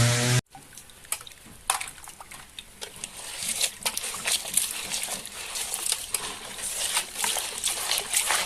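A loud car-engine sound effect cuts off abruptly about half a second in. After it comes quieter rustling with many scattered light clicks and knocks of plastic toy vehicles being handled.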